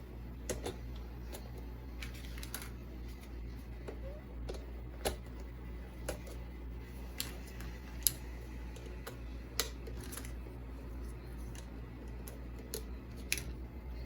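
Scattered light clicks and taps of small plastic items and packaging being handled, irregular, with a few sharper clicks, over a steady low hum.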